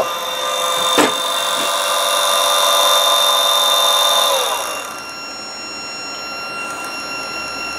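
20-volt DC motor run on 12 V from an IGBT PWM drive, giving a steady whine made of several tones. About four and a half seconds in, its pitch slides down and it gets quieter as the motor is slowed until it is barely turning over, leaving a fainter steady PWM whine. A single click sounds about a second in.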